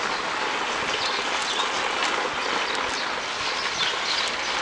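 Steady rushing noise of a motorcycle ride over a cobbled street: tyre and wind noise with faint scattered rattles and ticks.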